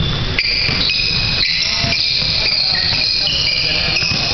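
Basketball game on a hardwood court: sneakers squeaking in high chirps that overlap and shift in pitch, with a few dull thuds of a ball bouncing over the echoing noise of the gym.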